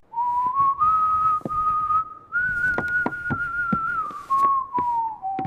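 Someone whistling a slow tune: one clear, unbroken note that slides up and then gradually drifts down in pitch, with a few light clicks along the way.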